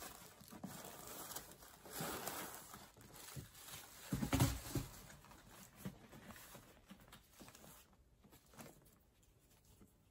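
Tissue paper and a fabric drawstring dust bag rustling as the bagged handbag is lifted out of its box and handled. The loudest rustles come about two and four and a half seconds in, and it dies down after about eight seconds.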